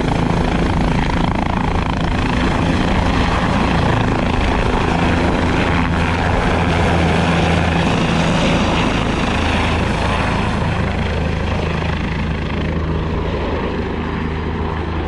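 Sheriff's helicopter lifting off and flying away: a steady rotor and engine drone that grows slightly fainter near the end.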